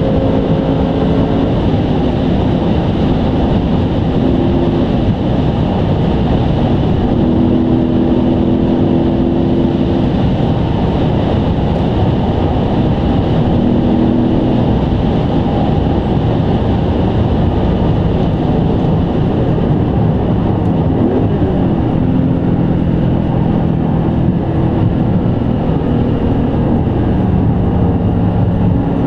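Cabin noise of a 2003 BMW M5 E39 driving at speed on a motorway. Its V8 runs as a steady drone under loud tyre and road rumble, and the drone's pitch shifts every few seconds.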